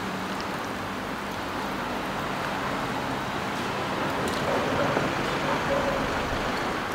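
Steady background hubbub with a traffic-like rumble, and no single event standing out.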